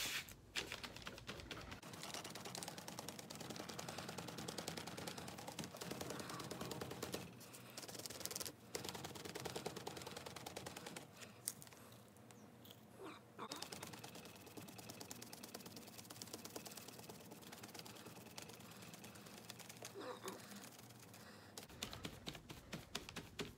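Sponge dabbing blue paint onto canvas: a quick run of soft pats and taps, with a few short pauses.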